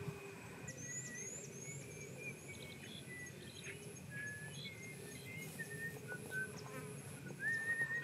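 Faint countryside ambience: small birds chirping and giving short whistled notes, with a high, evenly repeating insect call.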